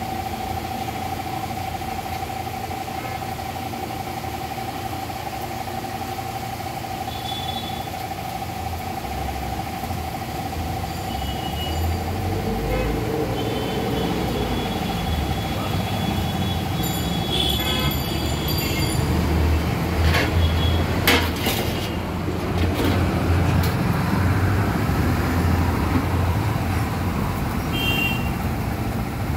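Road traffic: vehicle engines running, with the low rumble growing louder about halfway through and a few short high beeps and sharp knocks.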